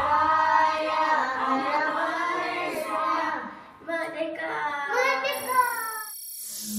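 A child singing, the sung phrases breaking off briefly about three and a half seconds in and ending about six seconds in.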